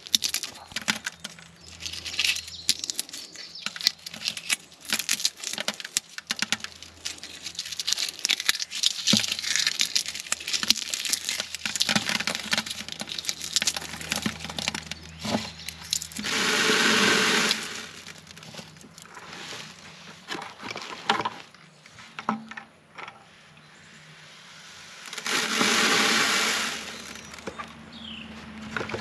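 Dry black radish seed pods crackling and snapping as they are crushed by hand over a bucket. Twice a louder rushing sound lasting about two seconds breaks in.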